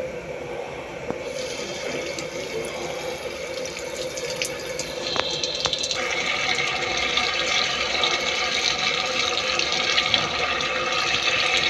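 Tap water running in a steady stream onto sliced raw potatoes in a plate as hands rinse them, the water splashing off the plate. The splash changes and grows a little louder about six seconds in.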